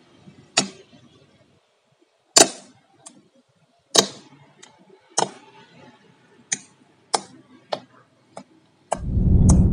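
Fingers squeezing and poking into soft pink slime, making about a dozen sharp, wet pops and clicks at irregular intervals as air pockets burst. Near the end a loud low rushing noise swells up and fades.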